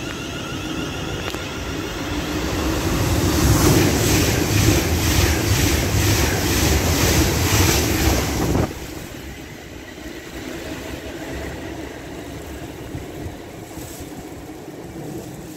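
A train passing the platform at speed: a rising rush of wind and wheel noise with a regular clatter of wheels over rail joints, about two a second, ending abruptly about halfway through. Wind buffets the microphone, and high wavering tones are heard at the start as the train approaches.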